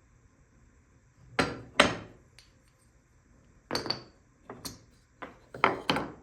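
Irregular sharp knocks and clacks of hard cherry wood pieces against each other or a workbench: a pair about a second in, then a quicker cluster of smaller knocks near the end.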